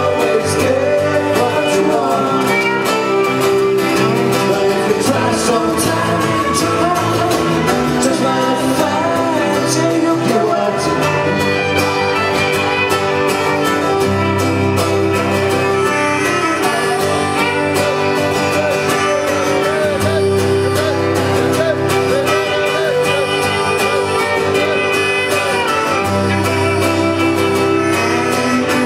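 Live acoustic band playing an instrumental passage: a bowed fiddle carries the melody over a strummed acoustic guitar and electric bass guitar.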